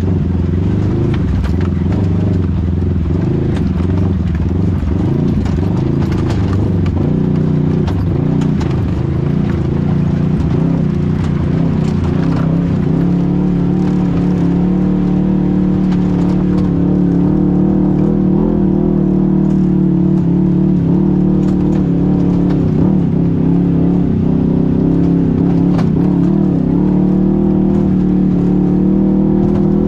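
A motor vehicle's engine running continuously, its pitch wavering up and down for the first dozen seconds, then holding a steadier note, with scattered knocks and rattles.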